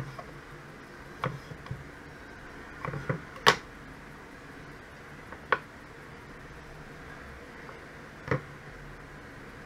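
Kitchen knife cutting through a cucumber and knocking on a wooden cutting board: nine or so short, sharp knocks at uneven intervals, the loudest about three and a half seconds in.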